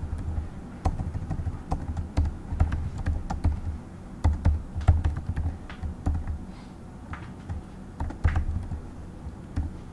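Typing on a computer keyboard: irregular keystroke clicks coming in short runs with brief pauses between them.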